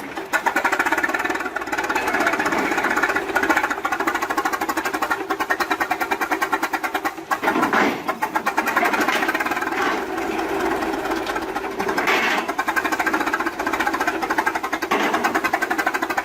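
Old machinery running with a fast, steady mechanical clatter of many strokes a second.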